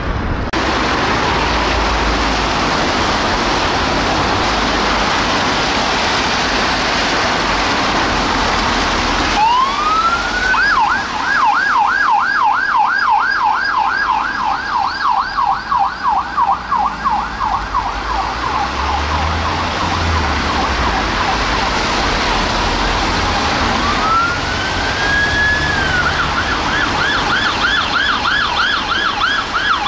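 UK police car sirens. After a loud, steady rushing noise, a siren winds up about nine seconds in and switches to a fast yelp of about three cycles a second. Near the end it winds up again and goes back to the yelp.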